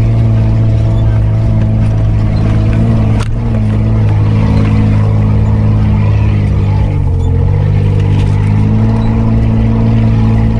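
Mitsubishi Pajero V6 engine running under load as the 4x4 crawls along a rutted dirt forest track, heard close up. A single knock about three seconds in, and the engine note dips briefly about seven seconds in, then climbs again.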